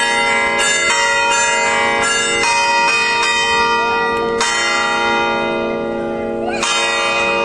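Church bells of a sanctuary ringing: several bells struck one after another at uneven gaps, each tone ringing on under the next. The ringing is taken to announce the start of a celebration.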